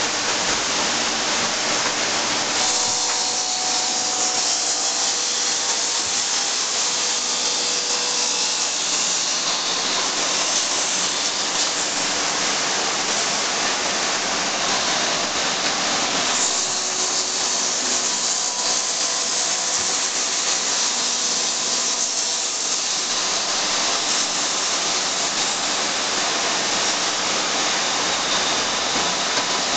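1998 Intorex RM-115 automatic six-station woodturning copy lathe running, its cutters shaving wood blanks on the spinning spindles, over the steady rush of its dust extraction. A continuous loud noise with a faint hum underneath; the cutting sound shifts slightly about two and a half seconds in and again about halfway.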